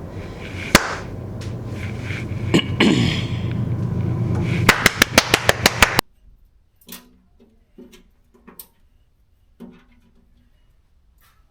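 Sharp clicks and knocks of tools and metal hardware while casters are fitted to a steel tool-box cart, over a steady hum. Near the middle comes a quick run of about eight clicks in just over a second. It then drops suddenly to quiet with a few light knocks.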